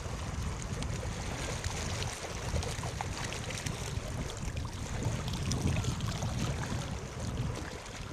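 North Sea waves breaking and washing on the shore, a steady rush with small crackles, under a low rumble of wind on the microphone.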